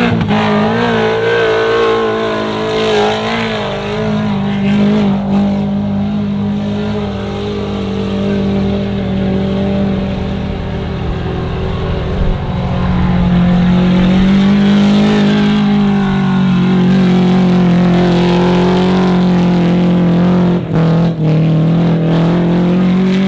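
Mazda Miata's four-cylinder engine run at high revs as the car is driven hard through snow. The pitch holds high, rising and falling slowly.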